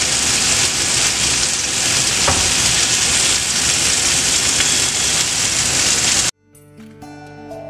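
Chicken pieces sizzling in oil in a frying pan, a steady loud hiss that cuts off suddenly about six seconds in. Soft music starts right after.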